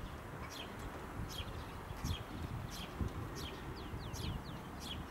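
Songbird calling over and over with short, high, falling chirps, one about every two-thirds of a second, with a quick run of four falling notes near the end, over a low steady rumble of wind or distant traffic.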